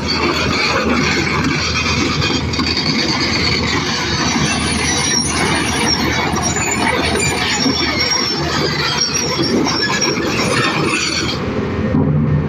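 Excavator on the move, its steel crawler tracks squealing and clanking over a steady engine and machinery noise; the high squeal stops near the end.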